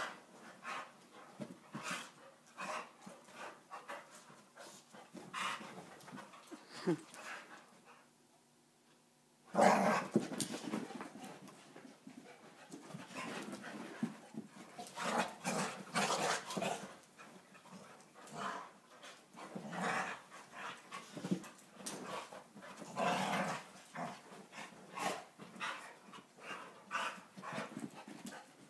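Two pit bulls play-fighting, with hard panting and scuffling in irregular short bursts. There is a brief lull about a third of the way in, and then a loud burst as the play picks up again.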